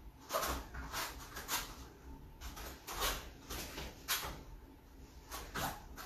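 Irregular soft thuds and scuffs of bare feet and bodies shifting on foam puzzle mats during partner grappling drills, about one to three a second.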